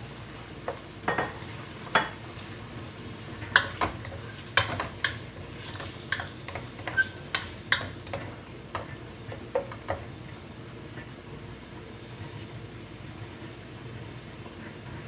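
Pork and shrimp frying in a stainless steel wok, with a spatula stirring and scraping, clinking against the metal many times over roughly the first ten seconds; after that only a steady sizzle.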